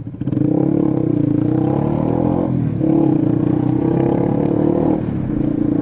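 Sinnis Hoodlum 125cc motorcycle engine pulling under throttle at low speed, running loud and steady, with a brief dip in the note about two and a half seconds in and again near the end.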